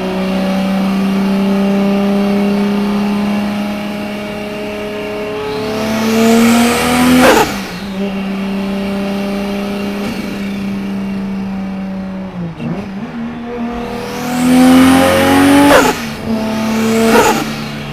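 Turbocharged car engine revving up and lifting off twice, each time with a short burst of turbo flutter as the revs drop, about seven seconds in and again near the end. Between the revs the engine runs steadily.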